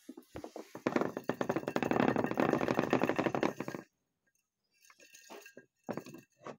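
Plastic saucer exercise wheel spinning under a running hamster, rattling rapidly for about three seconds and then stopping suddenly; a few scattered clicks and taps follow.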